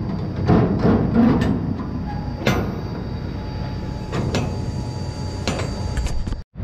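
A handful of sharp metal clanks and knocks over a steady low rumble.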